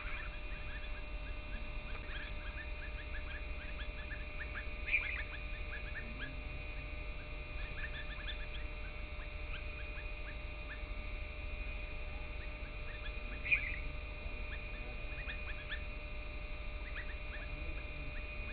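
Small birds chirping in many short notes, with two louder calls, one about five seconds in and one about thirteen seconds in, over a constant low rumble.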